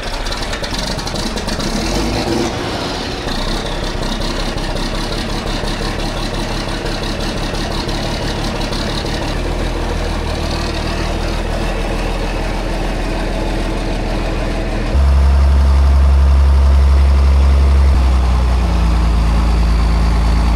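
John Deere tractor engine running steadily, then suddenly louder and deeper about fifteen seconds in.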